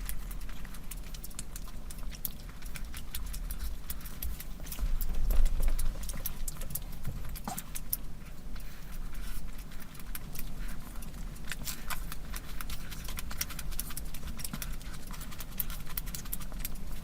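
Close-miked eating sounds: chewing and wet mouth clicks and smacks, many small irregular clicks, over a low steady hum, with a louder low bump about five seconds in.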